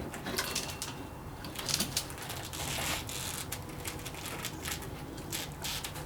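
Saw chain and long guide bar being handled and fitted onto a chainsaw: irregular clicks, rattles and scraping, with a sharp knock right at the start.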